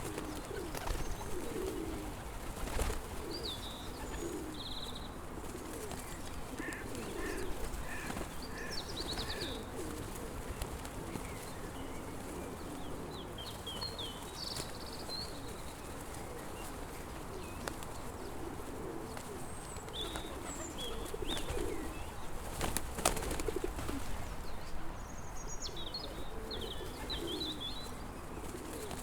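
Pigeons cooing over and over, with smaller birds chirping high above them. A sharp knock or clap cuts across the birdsong about three seconds in, and another about twenty-three seconds in.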